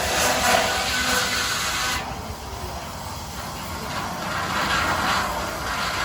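Steam traction engine venting steam: a strong hiss that drops away suddenly about two seconds in, followed by a few shorter puffs of steam.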